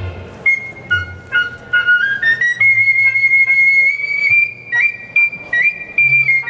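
Flute playing a high solo melody: a few short stepping notes, then a long high note held for about two seconds, broken by two quick dips near the end.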